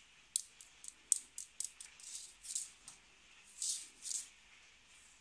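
A cat playing and shifting about on a mat in its pen: a quick run of light clicks and ticks in the first two seconds, then a few short scratchy rustles.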